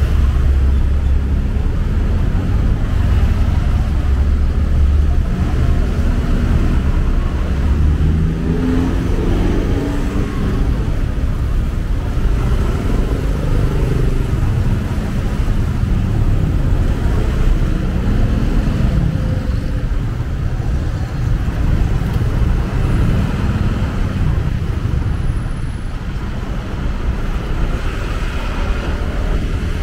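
A motorcycle engine running under a steady low rumble of riding noise. From about eight seconds in, the engine's pitch rises and falls again and again as the throttle opens and closes.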